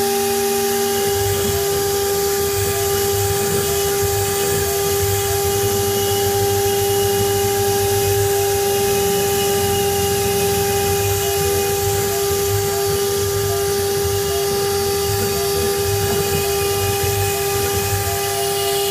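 Water-cooled spindle of a 1325 CNC router running at a steady whine while its small bit carves a relief into a wood panel, with a hiss of cutting over it. A low hum comes and goes underneath as the head moves.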